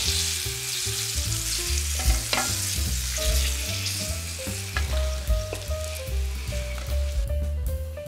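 Tapioca-starch-coated chicken pieces deep-frying in hot oil, sizzling steadily, with a few sharp knocks. The sizzle thins out near the end. Background music with a bass line plays underneath.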